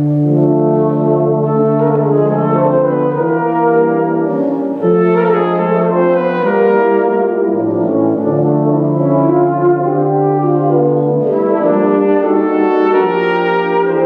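Tuba and euphonium ensemble playing a slow ballad in sustained chords, the low tuba line holding each note for a few seconds before moving to the next.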